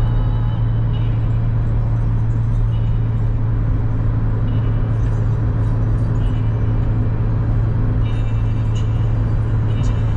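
Steady low mechanical hum running without a break, with faint short high-pitched tones coming and going above it.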